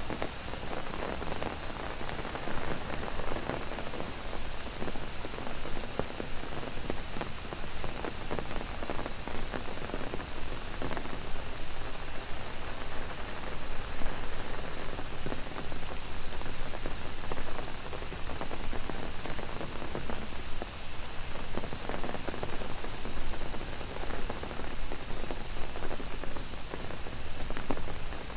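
Cicadas shrilling in a steady, unbroken chorus, with rain pattering and footsteps underneath.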